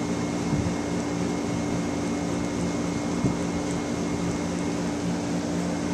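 Steady mechanical hum of a running room appliance, with two low tones held under it. A couple of faint clicks come about half a second and three seconds in.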